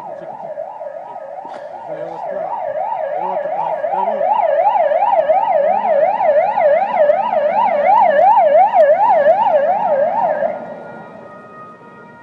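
Emergency vehicle siren in a fast up-and-down yelp, about two and a half sweeps a second. It grows louder as the vehicle approaches and cuts off abruptly about ten and a half seconds in.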